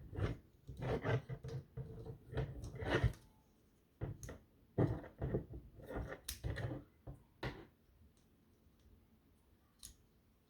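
Plastic Bionicle/LEGO pieces being pulled apart and handled: runs of clicks and rattles, with a short pause about three seconds in. It goes quiet for the last few seconds except for a single click.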